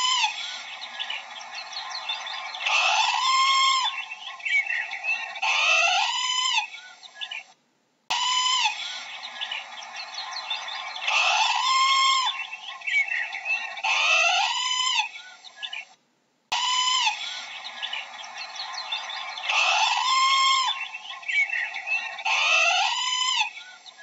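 Parrots calling: loud calls that rise and fall in pitch, three or four at a time, over a constant chatter of many bird chirps. The same stretch of about eight seconds plays three times, each repeat broken off by a brief silence.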